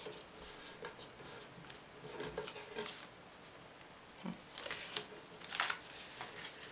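A sheet of A4 paper rustling and creasing under the fingers as it is folded: quiet, short scrapes and crinkles, with a couple of louder rustles about five and six seconds in.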